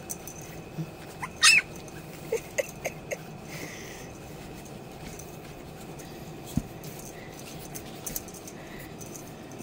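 Young puppies crying: one loud, high rising squeal about one and a half seconds in, then a few short whimpers, with quieter whines and small clicks after that.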